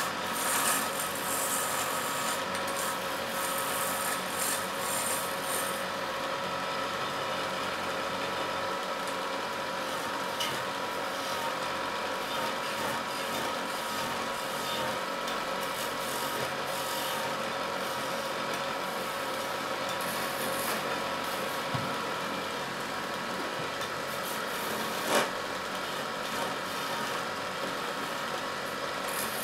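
A wood lathe spinning a long wooden blank while a hand-held turning tool cuts into it: a continuous rasping of the tool on the wood over a steady hum. The cutting is brighter and hissier for the first few seconds, and there is a single sharp knock near the end.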